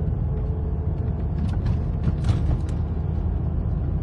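Steady low rumble of a car's engine and tyres heard from inside the cabin while driving slowly on a rain-wet street, with a few faint ticks in the middle.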